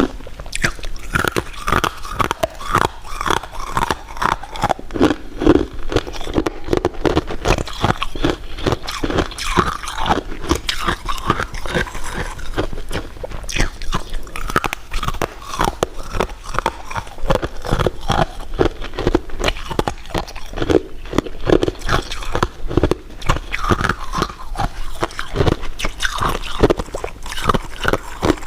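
Close-miked eating: continuous biting and chewing with crunching, dense irregular crunches and smacks.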